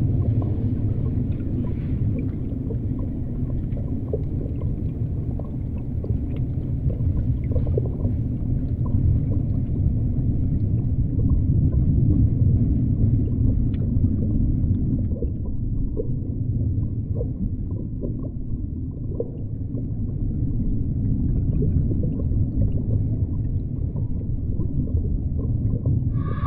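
Muffled underwater ambience: a deep, steady rumble with faint scattered clicks and pops. About halfway through, the higher sounds fall away and it turns duller.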